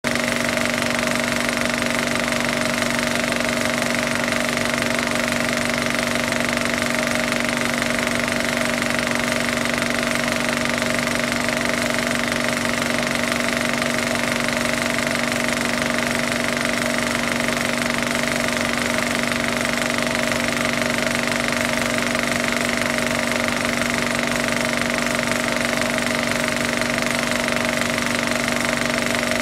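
Steady, unchanging mechanical drone: a constant hum with a few fixed higher tones over a noisy hiss, with no rise or fall.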